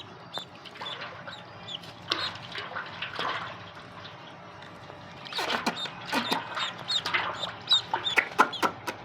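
Ducklings and chicks peeping: many short, high calls, which become busier and louder after about five seconds.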